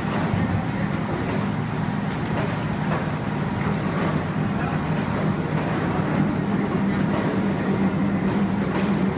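Fish weight-grader feeding system running: steady machine noise with a continuous low hum and a few faint clicks.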